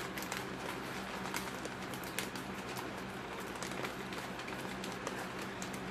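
Scattered small crackles and crunches from a Xtra Flamin' Hot Cheetos snack bag being handled and its crunchy snacks being eaten, over a steady low hum.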